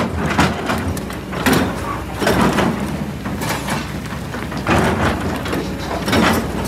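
Hydraulic excavator running steadily under a series of irregular scraping bursts, about eight in all, as its bucket works a large boulder and loose rock and dirt against the pit wall.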